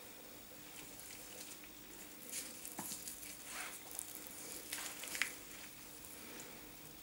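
Soft, scattered rustles and light crackles of plastic-gloved hands working and stretching a thin sheet of lard-greased dough on a worktop, busiest in the middle of the stretch, over a faint steady hum.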